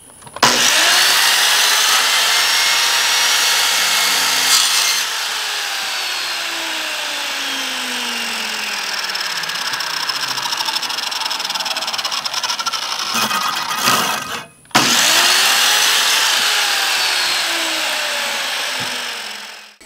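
Kobalt miter saw motor running and cutting through 4-inch Schedule 40 PVC pipe in two long runs. There is a brief stop about 14 seconds in, and the motor winds down near the end.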